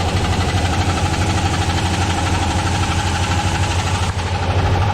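Chevrolet 2500HD's 6.0-litre V8 petrol engine idling steadily with its knocking noise still present even with fresh spark plugs on the left bank, a knock the owner suspects comes from a dropped valve.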